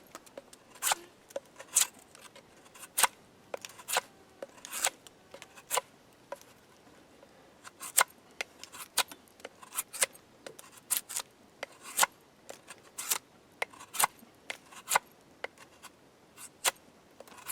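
Cold Steel Recon 1 Tanto folding knife carving wood: a series of short, sharp cutting strokes, roughly one a second at an uneven pace, each taking off a shaving.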